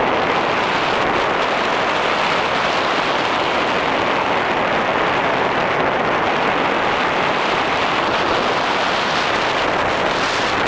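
Steady, loud rush of wind buffeting the on-board camera's microphone as a tandem paraglider flies fast and low.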